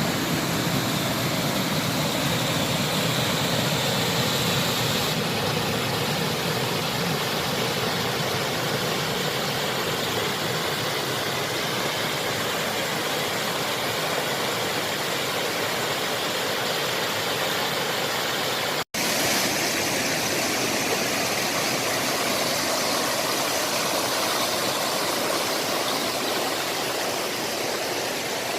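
Mountain stream water rushing steadily over rocks, a constant even wash of sound that drops out for an instant about nineteen seconds in.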